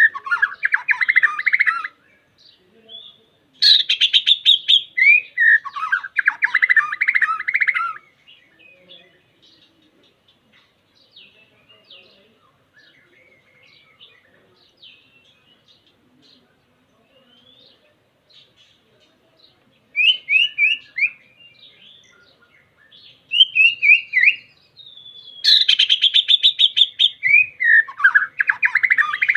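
White-rumped shama (murai batu) singing to a rival in loud bursts of rapid repeated notes and short falling whistles. A long stretch in the middle holds only faint chirps, and the song comes back strongly near the end.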